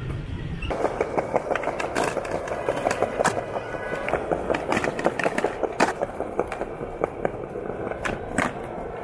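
Skateboard wheels rolling over pavement, with repeated sharp clacks and knocks from the board hitting the ground.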